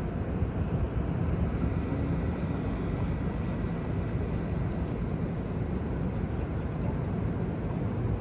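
An airplane's engine running with a steady low drone, the plane not yet taking off, with a faint thin whine above it.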